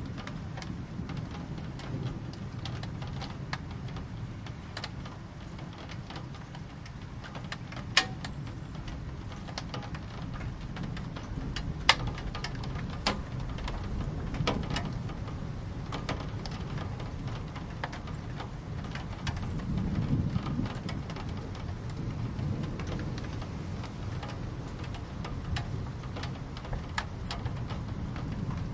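Steady rain, with scattered drops striking a hard surface in sharp taps, two of them louder about a third of the way in. A low rumble of distant thunder runs underneath and swells about two-thirds through.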